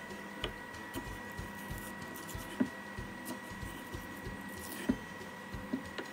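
Kitchen knife chopping green onion on a wooden cutting board: irregular knocks of the blade against the board, two of them louder.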